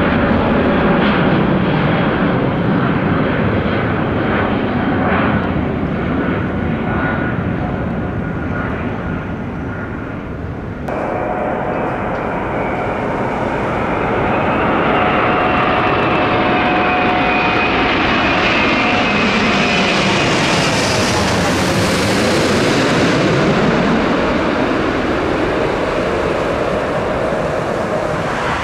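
Airbus A380 jet engines running as the airliner passes. About eleven seconds in the sound cuts abruptly to a second pass, with a steady engine whine that swells and sweeps as the aircraft goes by closest, then eases off.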